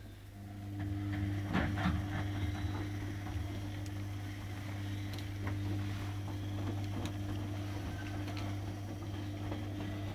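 A steady mechanical hum holding one pitch throughout, with a few soft knocks and rustles about one and a half to two seconds in.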